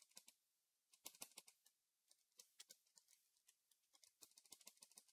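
Faint computer keyboard typing, a few short runs of keystrokes.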